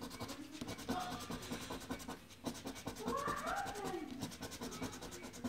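A coin scratching the latex coating off a scratch-off lottery ticket in rapid, repeated strokes. About three seconds in, a brief wavering call rises and falls in pitch.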